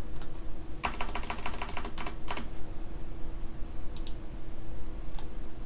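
Computer keyboard keys tapped in a quick even run of about a dozen presses, followed by a few single clicks of a computer mouse, over a faint steady hum.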